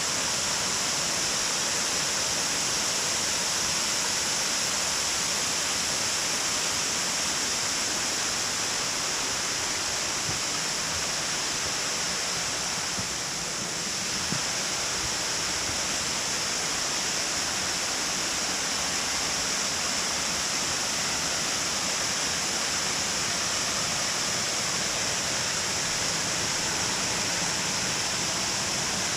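Waterfall of water pouring over a small mill dam, a steady rushing noise.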